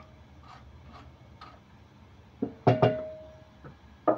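Metal cookware clattering in a kitchen: a few light knocks, then two loud clanks about two and a half seconds in, one ringing on briefly with a single clear tone, and a sharp knock near the end.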